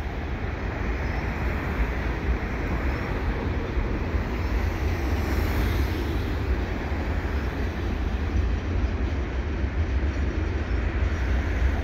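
Double-stack container train's well cars rolling past, a steady noise of steel wheels on rail that grows slightly louder as it goes.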